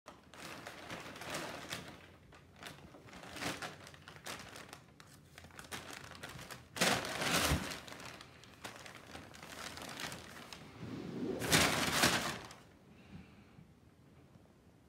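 Brown kraft packing paper crinkling and rustling in irregular bursts as cats roll and pounce in it, loudest twice, about seven and about twelve seconds in.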